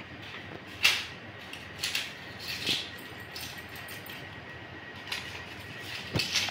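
Small paper medicine packet being handled and unfolded, rustling and crackling several times over a faint steady room noise.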